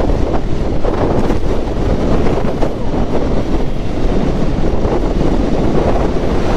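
Yamaha FZ-S V3's single-cylinder engine and tyres at riding speed, heard under steady wind rush on the rider's microphone.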